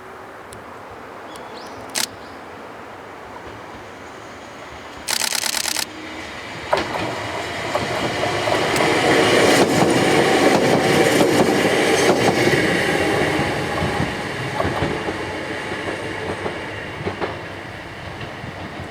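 Hakone Tozan Railway 2000-series electric train passing, its wheels clacking over rail joints; the sound builds from about seven seconds in, is loudest in the middle and slowly fades. A brief loud buzzing burst comes about five seconds in, before the train arrives.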